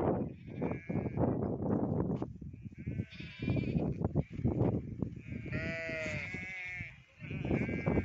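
A penned flock of goats and sheep bleating, with several calls. The longest and clearest is a wavering bleat lasting over a second, a little past the middle. Underneath runs a constant rough rustling noise.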